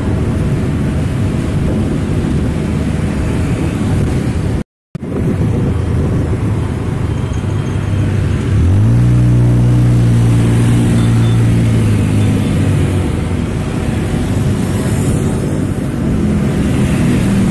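Loud, rough car exhaust rumble while driving. It cuts out for a moment about five seconds in. Later the engine note climbs and holds as a steady drone for several seconds before easing off.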